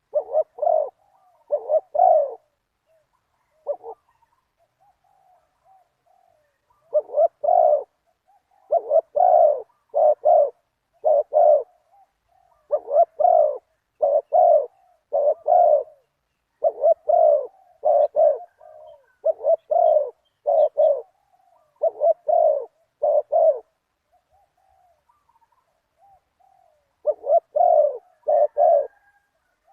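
Spotted doves cooing over and over in phrases of two to four deep, hoarse coos separated by short pauses. There are longer lulls at about four seconds in and again near the end.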